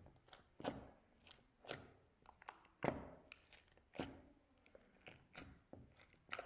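Slime being pressed and worked by hand, giving a series of sharp wet pops and clicks, the strongest about once a second with smaller ones in between.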